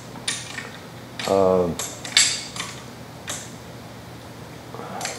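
Small wrenches clicking and clinking against the adjustable tappets of a Ford Model T engine as the lifters are screwed all the way down for valve clearance: a handful of separate metallic clinks, with a short voice sound about a second and a half in.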